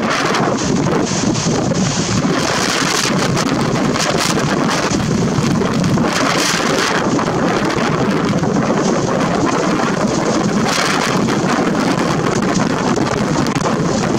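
Storm wind blowing hard across the microphone, loud and steady, with stronger gusts about three, six and eleven seconds in.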